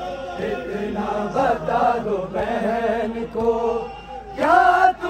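A noha, a Shia lament for Imam Husain, chanted in Urdu in long held sung lines, with a loud rising phrase near the end.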